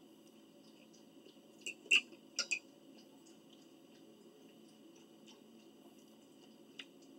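A person eating, with a few sharp wet smacks and clicks about two seconds in and one more near the end, over a steady low room hum.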